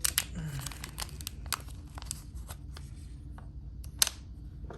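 Irregular sharp clicks and light rustling from hands handling a metal fidget slider, with one louder click about four seconds in.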